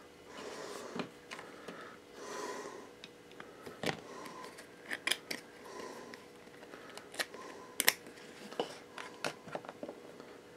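Faint handling noise: scattered light clicks and taps as small glass liquor bottles and a thin plastic cup are moved about on a desk. A few soft swells of noise come between them, and the clicks come closer together in the second half.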